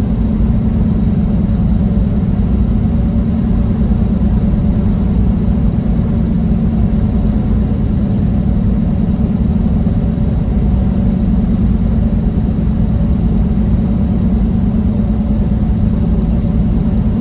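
Steady low drone of a semi truck's engine and road noise heard inside the cab while driving.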